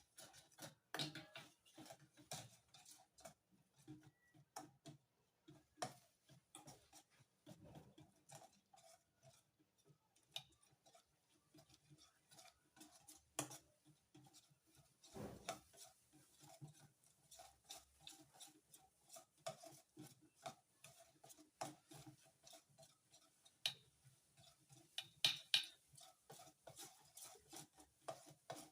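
Spoon stirring gelatin into cold water in a small bowl: faint, irregular clicks and taps of the spoon against the bowl.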